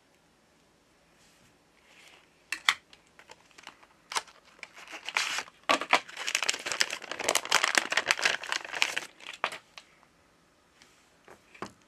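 Metallized anti-static shielding bag crinkling as it is handled and opened, in dense crackling for about five seconds in the middle, after a few sharp clicks.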